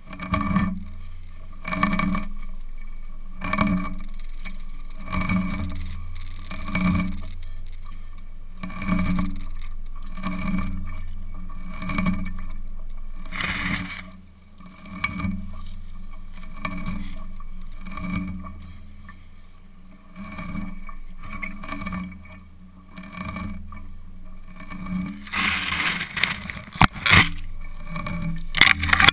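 Rhythmic thuds and rubbing about every one and a half seconds, carried through a camera strapped to an elephant as the elephant moves while feeding. Near the end, a louder burst of rustling with sharp snaps as its trunk pulls at leafy honey locust branches.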